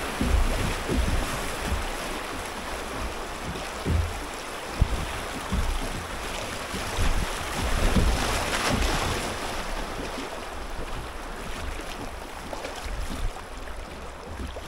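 Rushing water of a river riffle around a kayak, with wind buffeting the microphone in gusts. The rush eases toward the end as the river flattens out.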